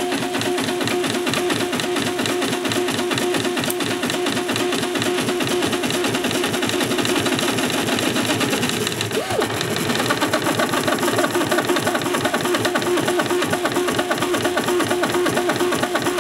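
3D printer's stepper motors running while printing, a steady whine with fast warbling tones as the head and bed move back and forth. About nine seconds in, a tone sweeps down and back up as a motor slows and speeds up again.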